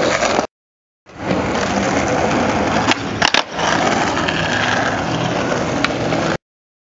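Skateboard wheels rolling over paving stones with a steady gritty rumble, broken twice by short silences. A few sharp clacks of the board come about three seconds in.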